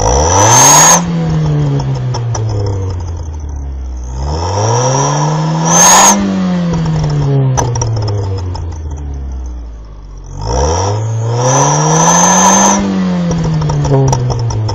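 Car engine revved three times from idle with a turbo whistler fitted in the exhaust, the fake-turbo add-on. Each rev rises and falls back over a couple of seconds, and a high whistle rises with it. A short hiss comes near the peak of each rev.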